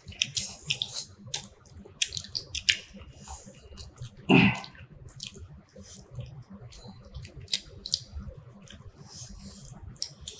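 Wet eating sounds of rice with fish curry eaten by hand: chewing and lip smacks heard as quick sharp clicks throughout. One louder, short, lower sound stands out about four seconds in.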